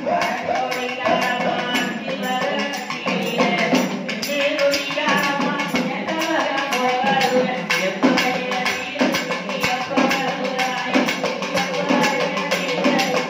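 Tamil kummi folk song: singing over a steady beat of hand claps and percussion.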